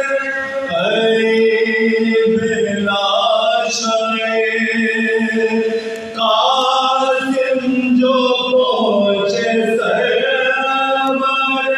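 Soz khwani: a group of male voices, a boy's among them, chanting a Muharram lament in unison without instruments, in long held notes. The chanting breaks off briefly about six seconds in, then resumes.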